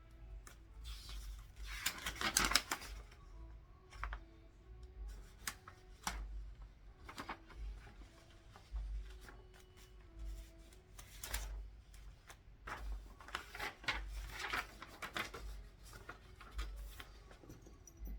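Paper being handled and rustled on a desk, with two longer rustles about a second in and again near the end, and scattered light clicks and taps between them.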